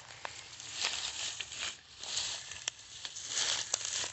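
Footsteps swishing and crunching through tall dry grass and brush, in uneven swells with scattered snapping ticks.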